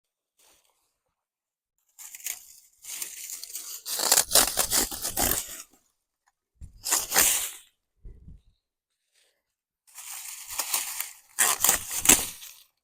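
Dry brush and branches crunching and rustling as they are handled, in four separate bursts.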